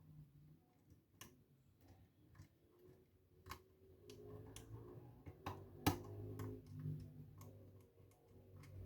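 Irregular small clicks and ticks of a lock pick working the pins of a pin-tumbler lock under tension, with one sharper click about six seconds in.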